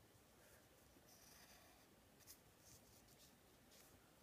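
Very faint scratching of drawing strokes on paper, several short strokes with small pauses between them.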